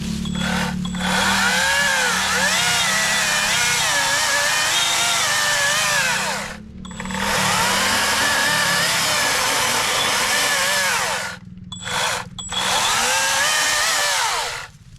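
Atlas 40-volt brushless battery chainsaw cutting into a tree trunk in three runs with short breaks between them. Its whine sags and climbs in pitch as the chain bites the wood and frees up.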